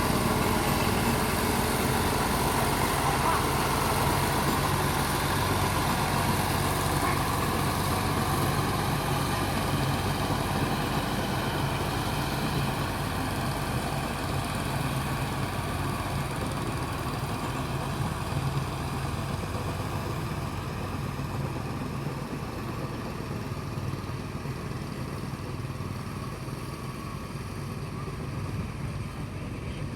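Boat engine running steadily, slowly growing quieter.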